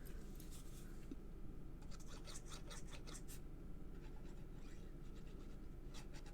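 Faint scratching strokes of a liquid glue applicator tip rubbed across cardstock, in small clusters.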